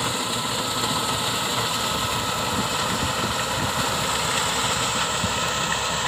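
Tractor engine running steadily as its front-mounted reaper cuts standing wheat, a continuous mechanical drone.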